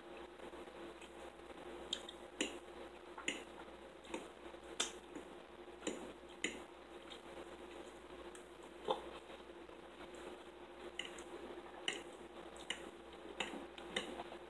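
Close-up eating sounds: a fork clicking and scraping against a plate, with wet chewing, as a mouthful of baked chicken is eaten. The clicks come at irregular moments over a faint steady hum.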